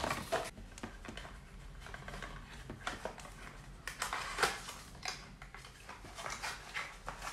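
Small cardboard box being handled and opened: scattered scrapes, taps and rustles of card as it is lifted out of an advent-calendar compartment and its end flap is pulled open.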